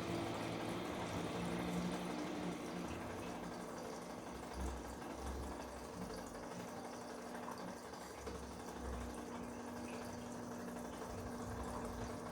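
Bosch Komfort-Klasse washing machine mid-cycle: water running and sloshing in the drum over a steady hum, with a few soft low thuds.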